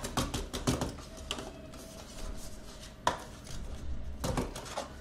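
Cardboard box and paper disc sleeves being handled: a quick run of clicks and rustles at first, a single sharp click about three seconds in, and another cluster of clicks near the end.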